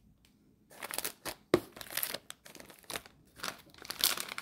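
Foil snack wrapper crinkling and tearing as it is opened by hand: short rustles and crackles after a brief hush, with a sharp snap about one and a half seconds in and busier crinkling near the end.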